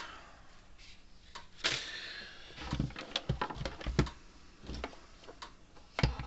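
Scattered knocks and clicks with a brief rustle about two seconds in: objects being handled and set down.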